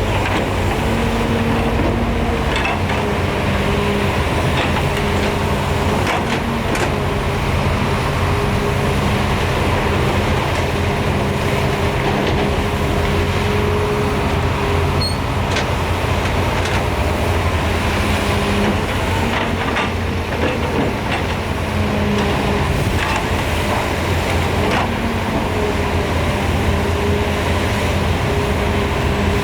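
Heavy diesel engine of a Doosan DX300LC-3 excavator running steadily while it works, its pitch rising and falling slightly a few times, with a few faint knocks.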